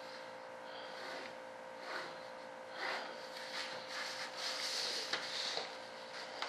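A metal ruler being shifted and a pencil marking along it on a paper pattern sheet: several rustling scrapes from about two seconds in, densest in the second half, over a steady faint hum.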